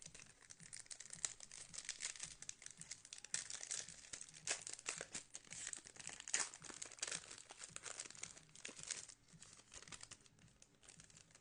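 Trading-card pack wrappers being torn open and crinkled by hand: a dense, crackly rustle of thin wrapper that eases off about a second and a half before the end.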